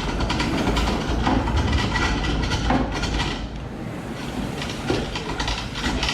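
Foot-powered spring pole lathe at work: continuous clattering and knocking of the treadle, cord and pole, with a tool cutting the spinning wood.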